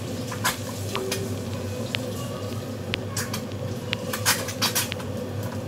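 Dishes and utensils clinking and knocking at the kitchen counter, a dozen or so irregular light knocks, a few of them ringing briefly, over a steady low hum.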